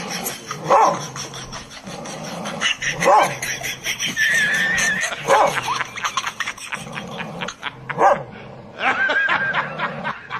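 A dog barking, four short barks a couple of seconds apart, with a high, thin held whine twice between them.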